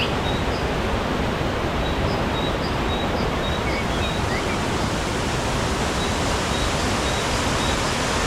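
Steady rush of a waterfall, an even roar of falling water, with a few faint bird chirps over it.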